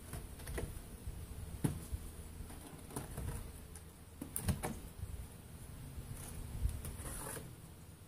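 Wooden beehive frames being handled in a Langstroth hive box: scattered knocks and clicks of wood on wood as frames are shifted and lifted out, over a low rumble.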